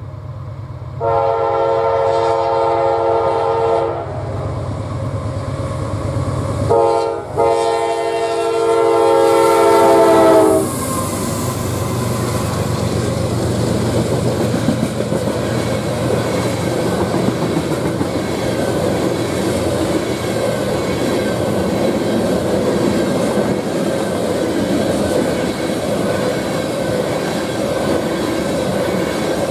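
A GE diesel freight locomotive's horn sounds a long blast, then a short blast and a long one, the crossing signal. The pitch of the last blast falls as the engines pass. Loaded tank cars then roll by steadily, their wheels clicking over the rail joints.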